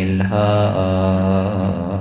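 A man chanting a mournful Arabic elegy (na'i), drawing out one long sung syllable in long held notes that step slightly in pitch.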